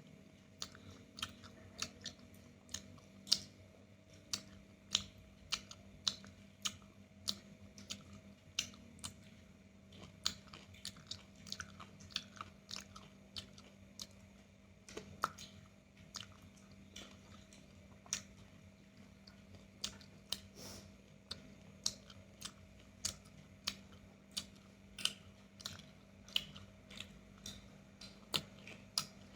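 Close-up chewing of roasted chicken, with sharp crunchy clicks about twice a second over a faint steady hum.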